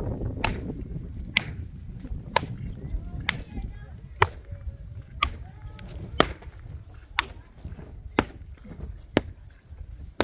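A length of wood struck down hard and repeatedly at the edge of an earthen roof: about eleven sharp knocks, evenly spaced about a second apart.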